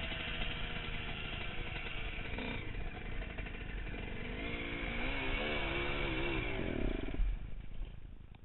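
Dirt bike engine running under the rider, its pitch rising and falling with the throttle, then fading out near the end.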